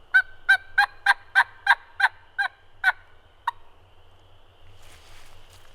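A series of turkey yelps on a turkey call: about nine sharp, evenly spaced notes at roughly three a second, then one lone note a little later, sent out to try to strike a gobble.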